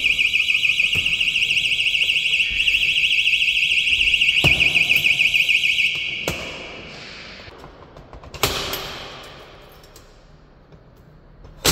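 Battery-powered door-handle alarm on an emergency exit door sounding a loud, high-pitched, rapidly warbling tone, set off by pressing the handle while it is armed; it cuts off about halfway through. A few sharp knocks follow as the handle and door hardware are worked.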